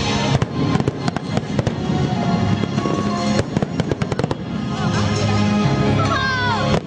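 Fireworks going off in a quick, irregular string of sharp bangs and crackles over loud music.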